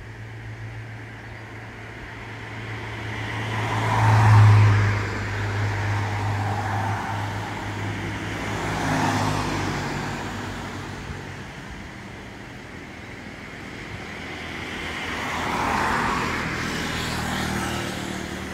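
Cars driving past one after another, engine and tyre noise swelling and fading three times, loudest about four seconds in. A low steady hum sits beneath the first half.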